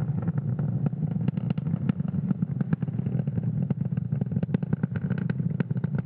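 Falcon 9 first stage's nine Merlin 1D engines burning at full thrust in supersonic ascent near maximum dynamic pressure: a steady low rumble shot through with rapid, irregular crackling.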